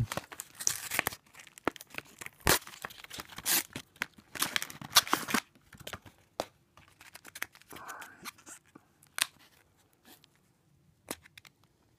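Card game deck packaging being torn open and handled by hand: wrapper crinkling and ripping in quick crackly bursts for the first half, then a few scattered clicks from a clear plastic deck case.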